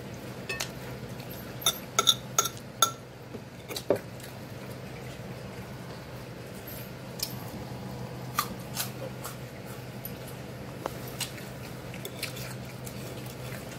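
A metal fork clinking and scraping against a plate while picking up salad: a quick run of sharp, ringing clinks about two seconds in, then scattered lighter taps.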